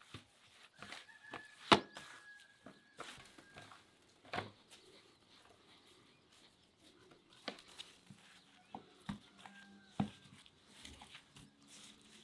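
Knife cutting raw meat on a wooden cutting board: irregular knocks and taps, the sharpest about two seconds in.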